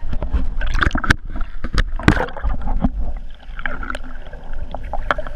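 Water sloshing and gurgling around a boat, with a steady low rumble and many scattered knocks and clicks, heard through a GoPro action camera's microphone.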